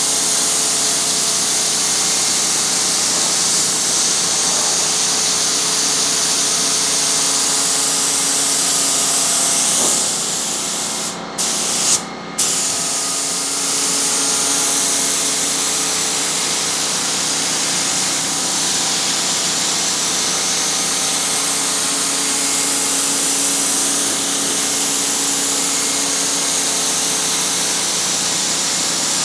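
Air spray gun laying down primer: a steady hiss of atomising air and paint. It cuts off briefly twice, about eleven and twelve seconds in, as the trigger is let go between passes.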